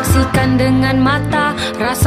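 Background pop song: a singing voice over bass and a steady drum beat.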